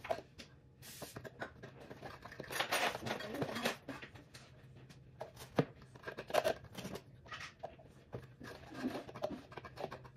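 Beaten eggs being stirred in a bowl by hand, the utensil clicking and scraping irregularly against the bowl's sides.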